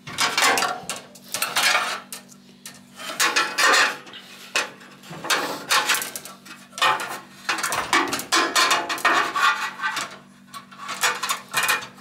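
Copper tubing clattering and scraping against a metal hand tube-bending jig as a loop of an evaporator coil is bent and repositioned: irregular bursts of metallic clanking and rattling.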